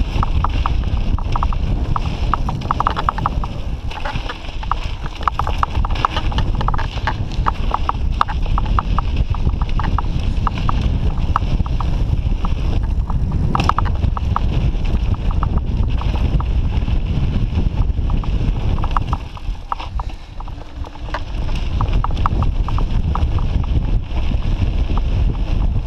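Mountain bike riding fast down a dirt singletrack, heard close from the rider's camera: a steady rumble of wind and tyres with a quick, uneven run of clicks and rattles from the bike over the bumps, easing off briefly about three-quarters of the way through.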